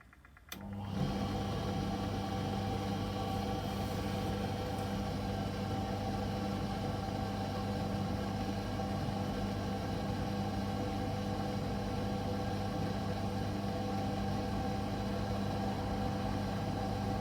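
Servis M2110 vented tumble dryer running with a steady motor hum and drum noise, which comes in abruptly just after the start and then holds even.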